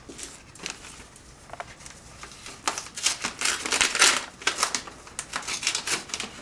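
Paper envelope being torn open and the paper inside handled: irregular bursts of tearing and rustling, loudest about three to four seconds in.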